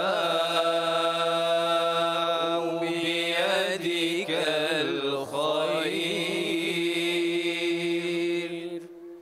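Collective Quran recitation in Arabic: men's and boys' voices chanting together, holding long drawn-out notes with some melodic movement in the middle. The voices stop near the end and the sound fades.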